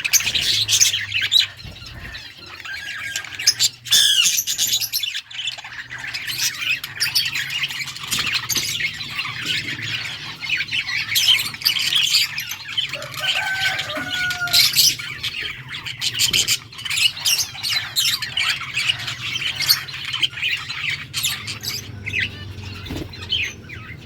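Several budgerigars chirping and chattering without a break, many rapid overlapping calls.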